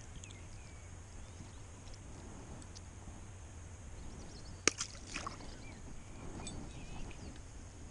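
A perch dropped back into the water by hand, landing with one short sharp splash a little past halfway, followed by a few smaller splashes.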